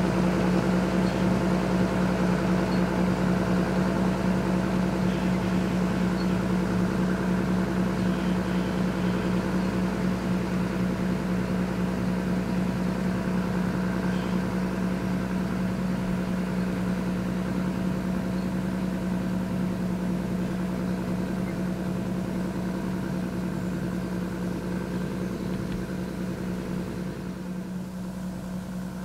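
John Deere 7720 tractor's six-cylinder diesel engine running steadily at a constant pitch under field work, with a strong low drone. It slowly gets quieter over the second half.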